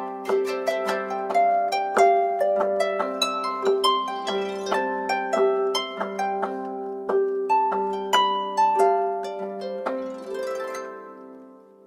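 Samsung Galaxy S7 stock ringtone: a melody of short plucked notes over a repeating low figure, several notes a second, fading out near the end.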